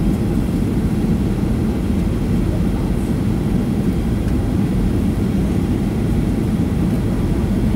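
Steady low rumble of airliner cabin noise, heard from a window seat while the jet descends to land.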